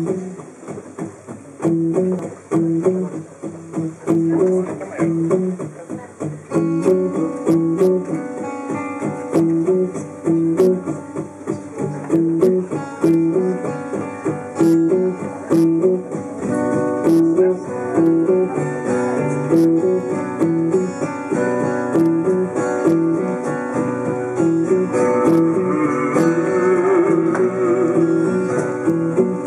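Acoustic guitars playing together in a steady repeating pattern, the sound growing fuller about six and a half seconds in.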